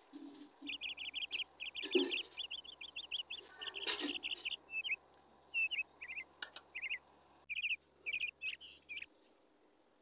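Small bird chirping in quick runs of short, high chirps, in several bursts that stop about a second before the end. Two soft knocks come about two and four seconds in.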